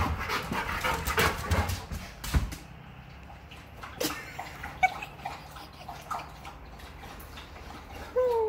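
Dog bounding around on a hardwood floor, with a rapid run of thumps and scrabbling for the first couple of seconds, then scattered light clicks. A short falling dog whine comes near the end.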